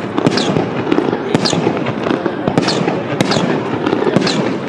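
Fireworks display: rapid sharp bursts of aerial shells and crackling, with a short high falling whistle recurring about once a second.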